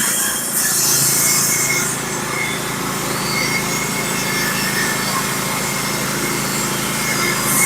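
Norwood HD36 portable bandsaw mill running with its engine at a steady pitch as the band blade saws through a log.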